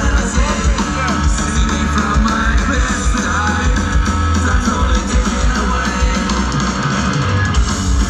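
Live rock band playing electric guitar, bass guitar and drums, with a singer's voice over the top, heard loud and steady from the crowd.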